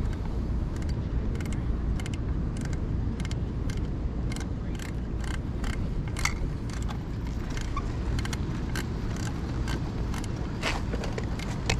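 Moving along a wooden boardwalk: a steady low rumble with light clicks and knocks from the boards, a few a second.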